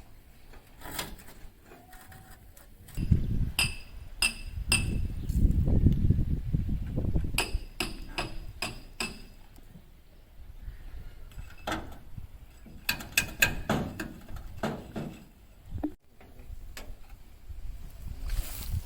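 Steel being struck: irregular clusters of sharp metallic clanks, each with a brief ringing tone, with a low rumble under the strikes in the first half.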